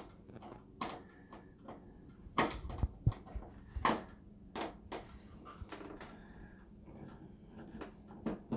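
Scattered clicks and light knocks of a screwdriver and loose screws being handled on the plastic back of an LCD TV while its back-panel screws are taken out.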